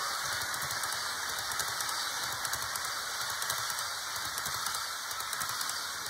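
HO scale model train running on track: a steady crackling hiss with many faint rapid clicks.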